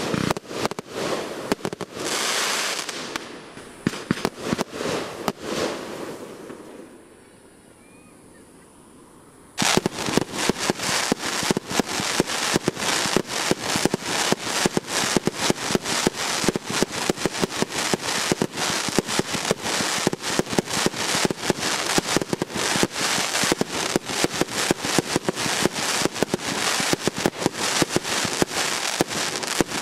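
Aerial fireworks bursting and crackling, many sharp cracks a second. The cracking dies down to a lull about seven seconds in, then a dense run of rapid crackles starts abruptly just under ten seconds in and keeps going.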